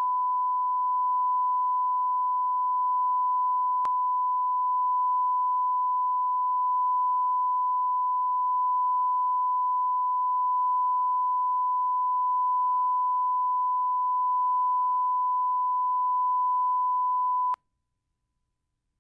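Steady single-pitch line-up tone played with broadcast colour bars, a pure sine tone held at one level, cutting off abruptly near the end.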